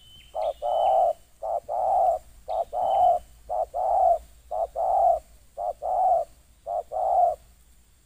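Spotted dove cooing: six paired coos, each a short note followed by a longer one, repeating about once a second. A few faint high chirps come from another bird in the first few seconds.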